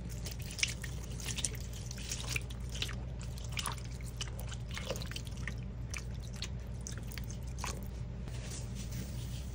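Lestoil liquid cleaner poured from a bottle onto two sponges in a stainless steel bowl: liquid splashing and dripping, with many small crackling pops of bubbles as it pools and foams.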